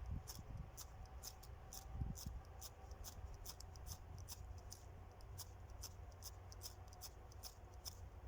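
Ferro rod (ferrocerium fire steel) struck again and again over birch bark tinder: short, sharp, high-pitched scrapes about two to three a second, with the tinder slow to catch because it is damp.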